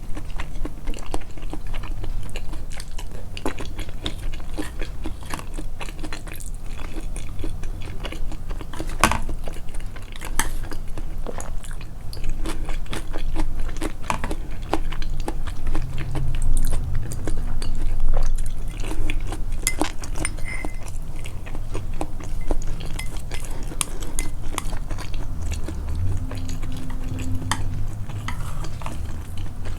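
Close, amplified chewing of a home-cooked meal, with frequent sharp clicks of utensils against dishes.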